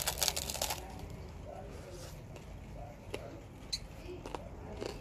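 Crunching bite into a crisp fried tortilla topped with salsa: a quick run of crackly crunches in the first second, followed by a few faint clicks.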